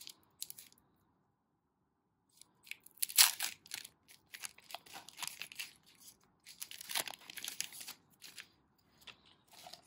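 Foil wrapper of a Pokémon booster pack being torn open and crinkled by hand. Irregular crackling rustles start about two and a half seconds in, with the loudest tears around three seconds and seven seconds.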